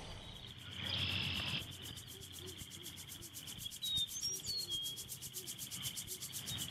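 Rural outdoor ambience: insects trilling steadily in a fast pulse, with a few short bird chirps about four seconds in. Near the start, a brief rustle of canvas bag fabric being handled.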